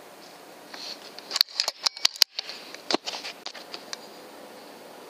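A rapid, irregular run of sharp light clicks and rattles lasting about two seconds, starting about a second and a half in, over a faint steady hiss.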